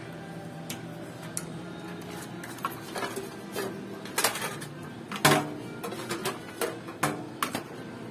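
Irregular metal clinks and knocks from handling a desktop computer's case, power supply and screws: about a dozen separate strikes, the loudest a little past five seconds in.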